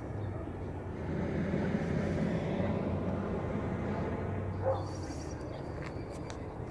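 Hot air balloon's propane burner firing overhead: a steady rushing blast that starts about a second in and lasts about four seconds.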